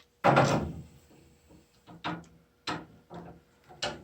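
Wrench work on a washing machine shutoff valve being turned tight onto its pipe thread. A loud scraping clunk comes just after the start, followed by four short, sharp clicks as the wrenches shift and bite on the fitting.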